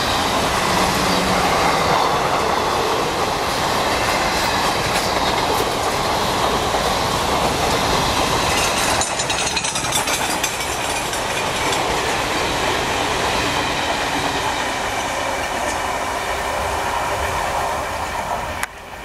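Express train's passenger coaches passing at speed: a steady rumble and clatter of steel wheels on the rails, dropping off abruptly near the end.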